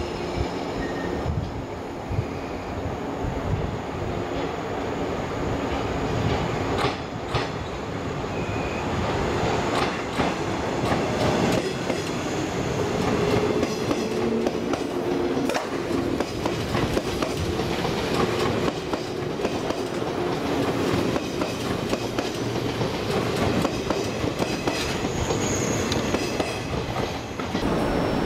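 Electric multiple-unit train running along a station platform: a steady rumble with a hum, and wheels clicking over rail joints.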